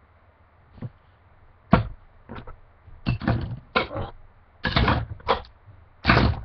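Irregular knocks and clatters of objects being handled, about eight in all, the sharpest a little before two seconds in and near the end.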